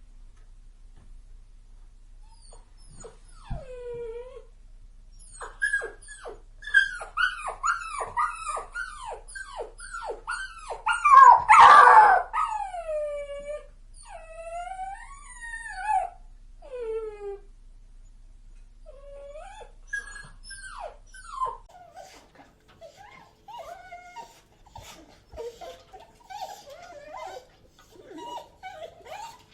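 A puppy crying: a run of high-pitched whimpering cries, many sliding down in pitch, with the loudest cry about halfway through. About 22 s in, it changes to excited dogs whining and yipping in short overlapping calls.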